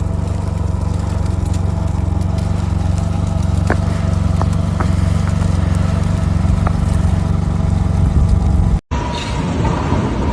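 Steady, loud low rumble of a running motor vehicle, with a few faint clicks. It cuts off abruptly near the end, giving way to different road-scene sound with a steady high tone.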